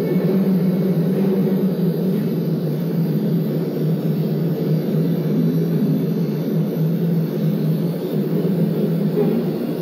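Pen-style rotary tattoo machine running steadily as it shades skin, a continuous low buzzing hum.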